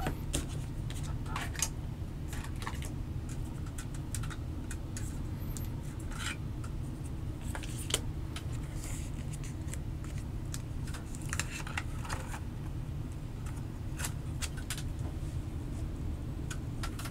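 Scattered light clicks and taps of keyboard parts being handled as a switch-loaded plate assembly is fitted into a CNC aluminium case, over a steady low hum.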